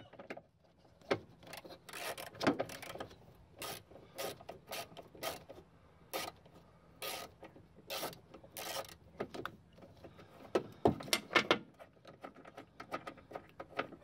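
Hands working plastic connectors and parts loose in a truck's engine bay: irregular clicks, taps and rattles of plastic and metal being handled.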